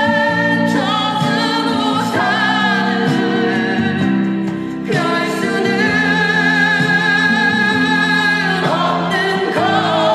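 A Korean pop ballad played back over hi-fi loudspeakers in a listening room: a singer holding long, wavering notes over instrumental accompaniment, with a short break between phrases about halfway through.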